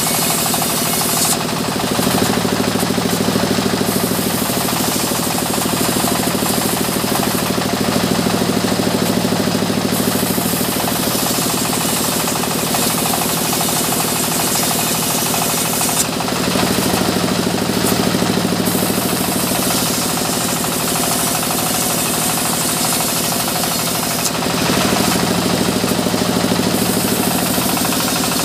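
Large sawmill bandsaw running steadily as timber is fed lengthwise through its blade. The sound swells four times, for two to three seconds each, with a fuller hum and a sharper hiss.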